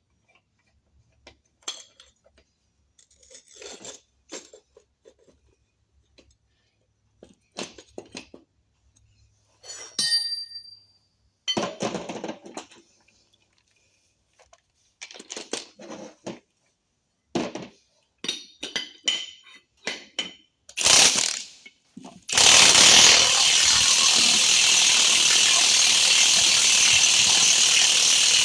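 Metal tools and parts clinking and knocking, one piece at a time, as the bearing removal tool is set up. About 22 seconds in, a loud, steady power tool starts running and keeps on.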